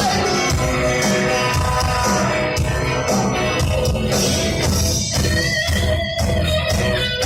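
Live rock music from a band, with electric guitar over bass and drums.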